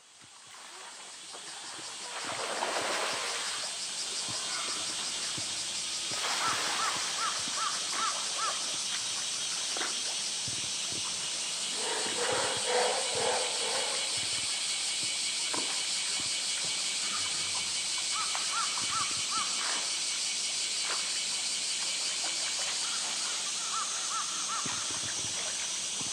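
Outdoor zoo pool ambience: a steady high hiss, water splashing as a polar bear moves in the pool, and a bird calling in short rapid runs several times.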